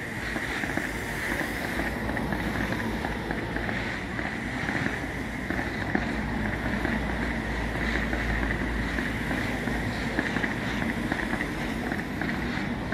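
Distant fireworks display: a continuous low rumble of far-off bursts that swells midway, with faint crackling and wind noise on the microphone.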